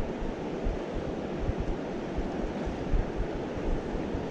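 Wind buffeting the microphone in irregular low gusts over a steady rush of fast-flowing river water.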